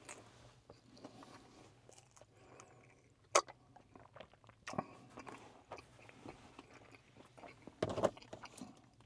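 Quiet chewing and mouth sounds picked up close by a clip-on microphone, with a couple of sharp clicks and a brief louder rustle about eight seconds in as things are handled beside the seat.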